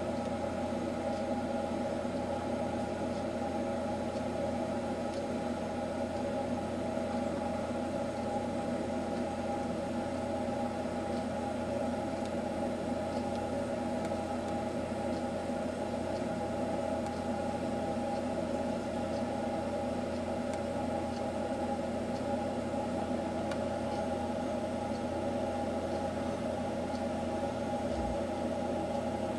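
A steady mechanical hum made of several fixed tones that holds at one level throughout, with a few faint, scattered high ticks.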